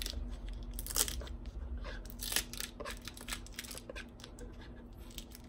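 Plastic end cap being pried and twisted on a cardboard mailing tube: scattered scrapes, creaks and small clicks, with sharper cracks about a second in and again a little past two seconds, growing quieter toward the end.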